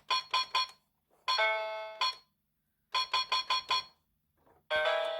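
61-key Bandstand children's electronic keyboard playing its built-in electronic sounds: a quick run of about five short beeps, then a longer chime that fades, heard twice.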